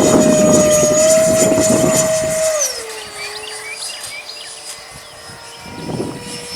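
E-Flite Viper 64mm electric ducted-fan jet whining steadily in flight, its pitch and level dropping about two and a half seconds in. Wind rumbles on the microphone while the jet is loudest.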